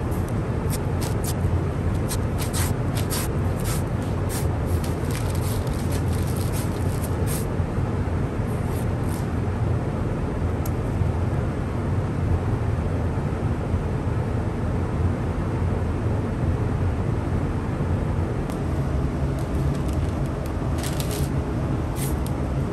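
Steady low machine hum, with bursts of crackling from masking tape being pulled off the roll, torn and pressed down, in the first several seconds and again near the end.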